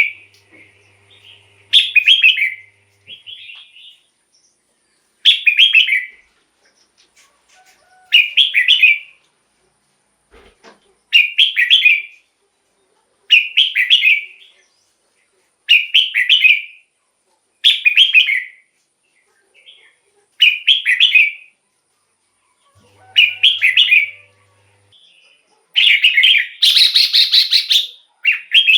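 Red-whiskered bulbul singing: short warbled phrases repeated about every two seconds, with a longer, higher, louder phrase near the end.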